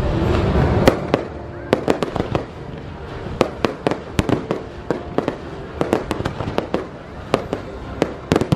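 Fireworks going off: a rapid, irregular string of sharp bangs and pops, several a second, as shells and comets are launched and burst. Loud show music fades out about a second in.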